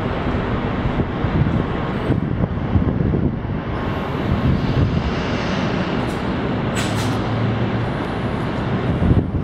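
City street ambience: a steady hum of traffic mixed with wind on the microphone, with a brief hiss about seven seconds in.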